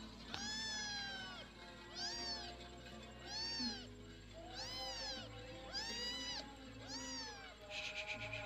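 Young kittens meowing over and over, about six high cries that each rise and fall in pitch, the first the longest. Background music with steady low tones runs underneath, and a short rapid buzzing rattle comes near the end.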